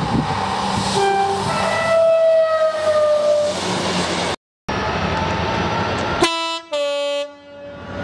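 A passing diesel multiple-unit train sounds its two-tone horn, a short low note then a longer high note that sinks in pitch as it goes by, over its engine and wheel noise. Then a diesel locomotive runs in and gives a loud two-tone horn, a short higher note then a longer lower one.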